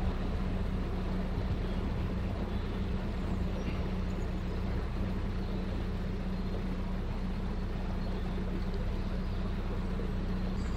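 Narrowboat's diesel engine running steadily at cruising speed, a constant low drone with the water and wind noise of the moving boat.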